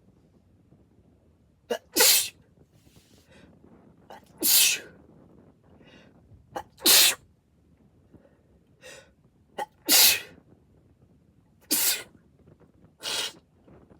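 A person sneezing six times in quick succession. The sneezes are wet, and most begin with a short, sharp catch of breath just before the main burst.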